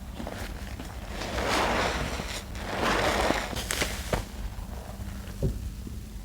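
Thick wet laundry-detergent soap paste being squished and mixed by hand, crackling as its lather pops, with two louder squelching swells a little over a second apart. A steady low hum runs underneath.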